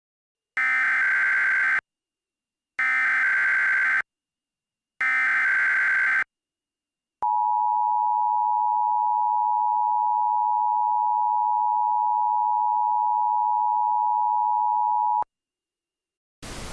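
Emergency Alert System activation: three short buzzy SAME header data bursts about a second apart, then the steady two-tone EAS attention signal (853 and 960 Hz) held for about 8 seconds, which announces an alert. A hiss starts just before the end.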